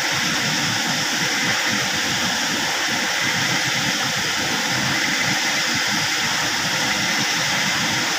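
Fast-flowing river water rushing over rapids: a steady, even rush of running water.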